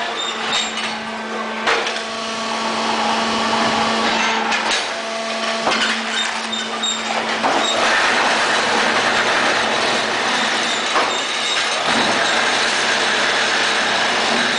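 Automatic concrete block making machine running: a steady machine hum and noise, with several sharp metallic clanks spread through it.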